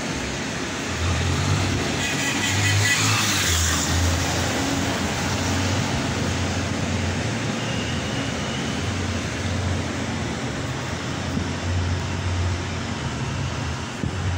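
City street traffic noise: a steady low rumble of motor vehicles, swelling louder for a moment about two to four seconds in.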